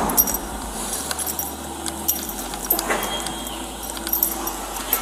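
Police body-worn camera audio: metal gear jangling with many scattered sharp clicks over a steady hum.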